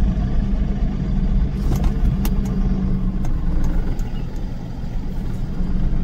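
Vehicle engine running steadily with a low hum, with a few light clicks about two seconds in.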